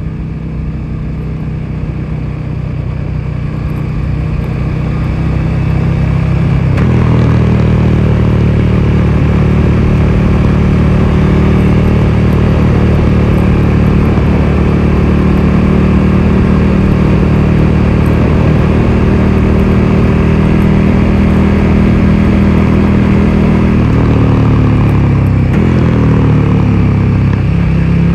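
KTM 1290 Super Duke R's V-twin engine heard from the rider's seat: it grows louder over the first seven seconds, holds a steady note at speed, then drops in pitch in a few steps near the end as the bike slows.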